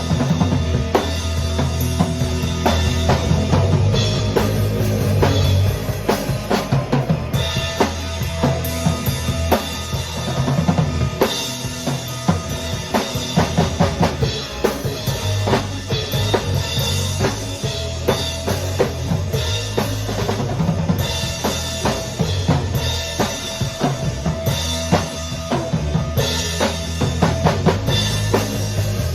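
A band playing, led by a drum kit: a steady beat of kick and snare hits over bass notes and held instrument tones.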